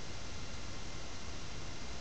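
Steady background hiss with a low hum beneath it: room tone.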